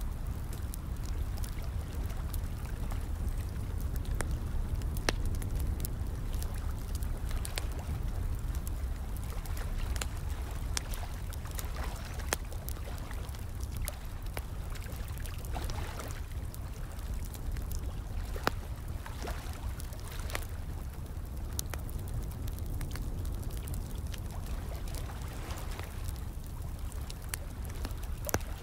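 A fire crackling, with frequent irregular sharp pops and snaps, over a steady bed of running, trickling water with a low rumble beneath.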